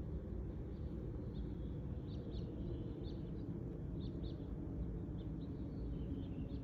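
Small birds chirping in short, quick calls over a steady low rumble.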